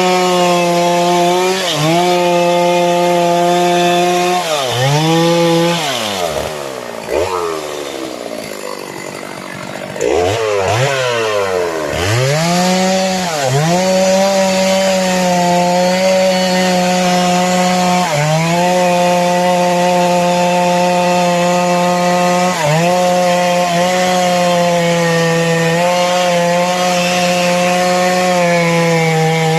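Two-stroke chainsaw cutting sengon wood. The engine runs at high revs and its pitch sags each time the chain bites, then recovers. Around the middle it drops to a lower speed for a few seconds before revving back up and cutting on.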